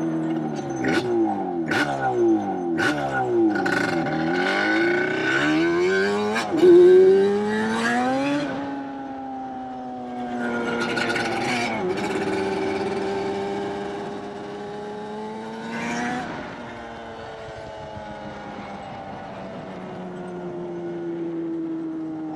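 Motor vehicle engines revving, their pitch climbing and dropping several times, with a few sharp clicks in the first seconds and the loudest burst about seven seconds in.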